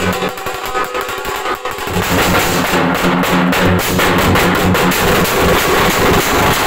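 Loud dance music with a heavy drum beat played through a DJ's PA sound system.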